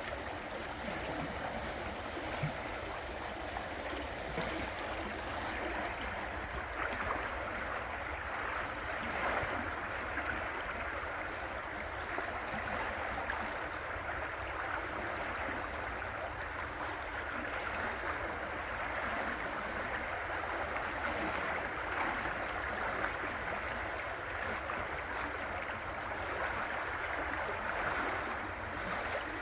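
River water flowing and rushing over rocks, a steady burbling rush of moving water.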